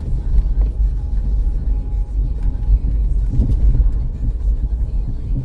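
Steady low rumble inside the cabin of a 2005 Dodge Caravan minivan driving slowly: engine and road noise.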